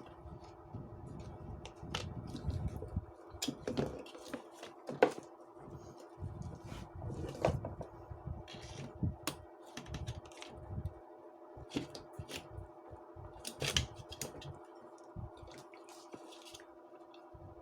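Scattered clicks and light knocks of small parts and tools being handled, the loudest about five seconds in, over a steady faint hum.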